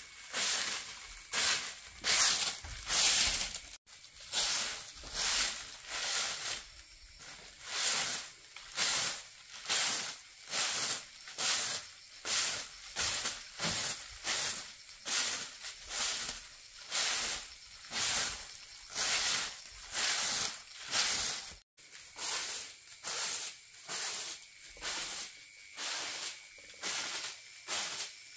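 Rhythmic rasping strokes of a hand tool working wood, about one stroke a second.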